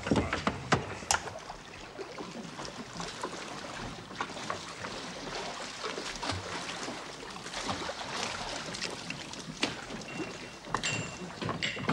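Oars dipping and splashing in the water as a wooden rowing boat is rowed along, with a few wooden knocks in the first second.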